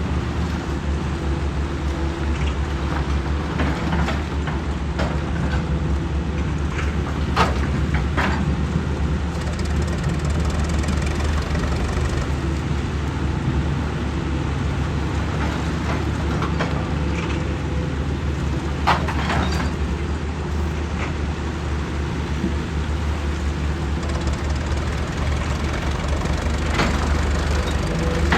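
Excavator's diesel engine running steadily, with a few sharp knocks, twice close together about a third of the way in and once past the middle.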